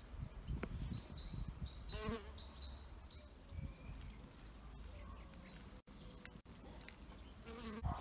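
A bee buzzing in flight, with a few short, sharp knocks.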